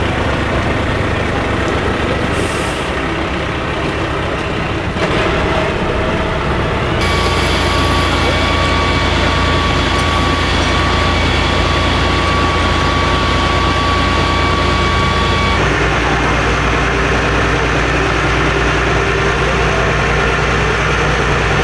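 Fire engine's diesel engine running steadily, with a steady high whine for several seconds in the middle. The engine sound changes abruptly twice.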